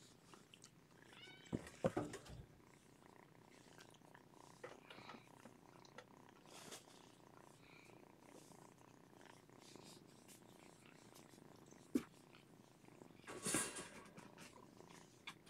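Domestic cat purring steadily and faintly, with a short kitten mew and a few scratchy clicks about a second and a half in. A sharp click near twelve seconds and a brief rustle just after it.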